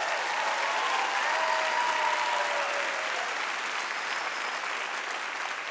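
A large theatre audience applauding, a steady wash of clapping that eases slightly towards the end.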